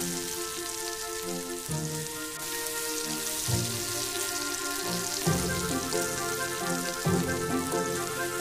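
Potato fritters (perkedel) sizzling as they fry in hot oil, a steady hiss. Under it runs background music, held notes changing about every second and a half.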